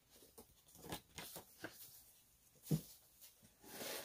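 Packaging being handled as a gift box is unpacked: faint rustles and light clicks, a single thump a little before three seconds in, then louder continuous paper crinkling near the end.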